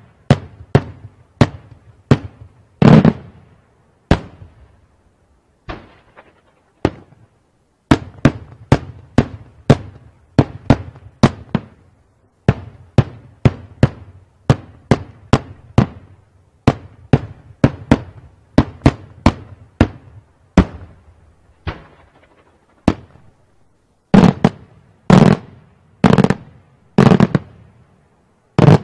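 Daytime aerial fireworks shells bursting in a long irregular run of sharp bangs, each trailing off in an echo, often several a second. There is a sparser lull about five seconds in, and a group of louder, heavier bangs near the end.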